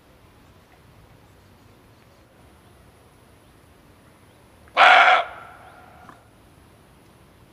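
Male muntjac (barking deer) giving a single loud, short bark about five seconds in, with a fainter tail fading out over about a second.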